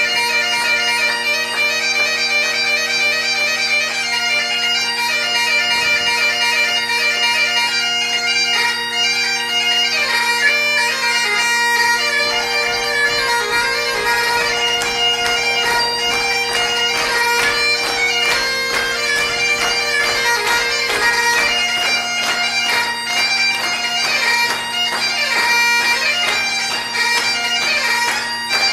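Solo bagpipe playing a quick tune on the chanter over steady drones.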